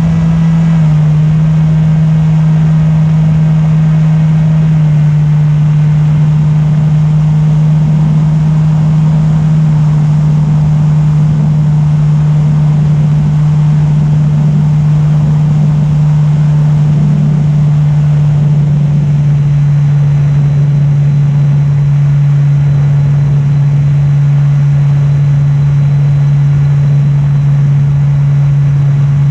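E-Flite Opterra's electric motor and propeller humming steadily at cruise throttle, with wind rushing past the onboard microphone. The hum drops slightly in pitch in the first few seconds, then holds.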